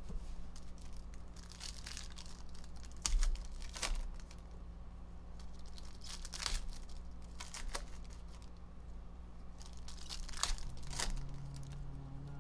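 Foil trading-card pack wrappers being torn open and crinkled by hand, in irregular crackly bursts.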